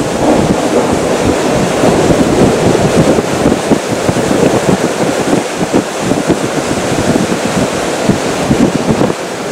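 Strong gusty wind from a winter squall line blowing hard against the microphone: a loud, steady rush with irregular low buffeting.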